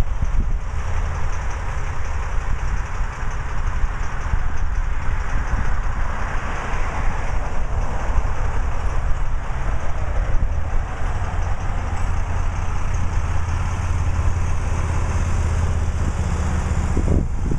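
Road traffic noise with a Harley-Davidson touring motorcycle's V-twin engine, towing a small trailer, rumbling steadily louder as it draws close over the last several seconds.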